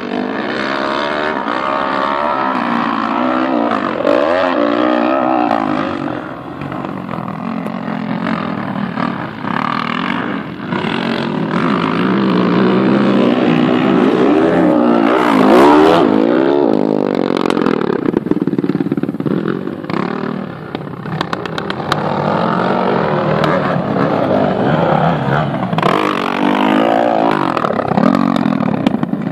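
Several motocross dirt bikes racing, their engines revving up and down as the riders work the throttle through the track's turns and jumps. About halfway through, two bikes pass close by and this is the loudest moment.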